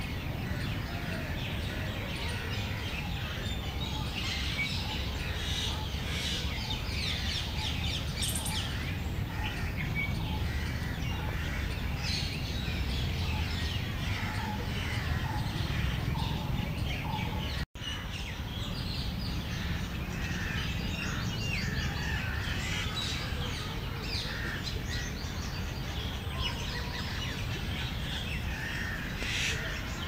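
Many wild birds chirping and singing together in a dense chorus of short, high calls over a steady low background rumble. There is a split-second gap in the sound about two-thirds of the way through.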